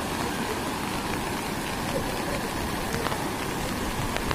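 Steady rushing noise of a flooded river pouring under a bridge, mixed with heavy rain falling.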